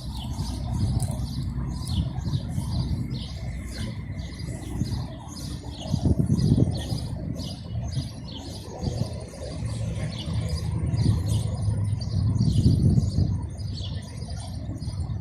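Birds chirping in quick repeated notes, a few per second, over a loud low rumble that swells twice.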